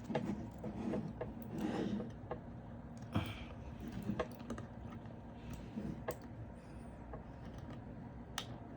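Scattered small clicks, taps and rustles of hands handling a computer fan and its cable against the miner's hardware.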